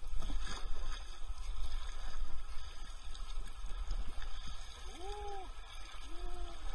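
Kayak paddling on a river: paddle blades dipping and splashing in the water over a steady low rumble. Near the end come two short rising-then-falling tones, about a second apart.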